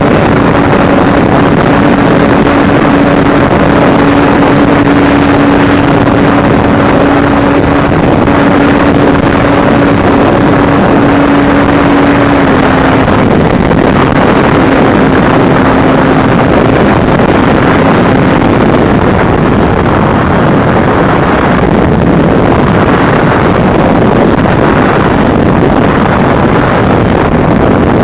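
Wind buffeting the microphone over the steady whine of an FPV drone's electric motors. The motor tone drops slightly about twelve seconds in and fades under the wind noise a few seconds later.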